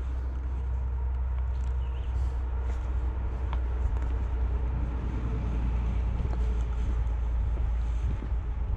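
Car driving, heard from inside the cabin: a steady low rumble of engine and tyres, with scattered small knocks and rattles.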